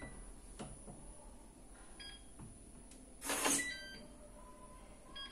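Papaiz SL 125B digital door lock working: short electronic beeps from the lock about two seconds in and again just before four seconds, with a brief louder noisy sound of the lock mechanism just before the second beeps, as the lock responds to a code.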